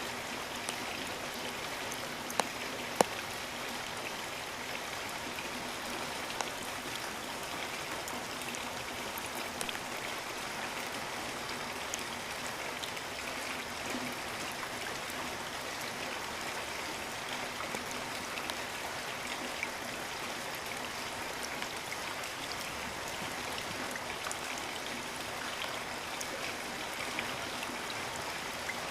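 Steady rain with individual drops hitting close to the microphone; two sharper drop hits about two and three seconds in.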